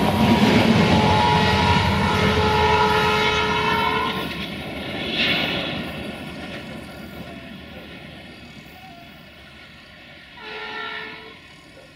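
Passenger coaches of a diesel-hauled train rolling past close by on jointed track. The rumble and rail noise fade steadily as the train pulls away round a curve, with two brief higher-pitched sounds, about five seconds in and near the end.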